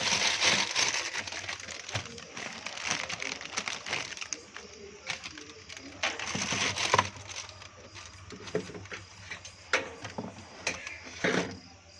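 Plastic packaging crinkling and rustling as it is handled, with scattered sharp crackles and knocks.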